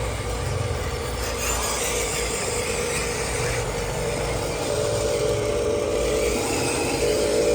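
Radio-controlled model trucks driving: a steady engine-like drone with a whining tone that grows louder and shifts higher about five seconds in.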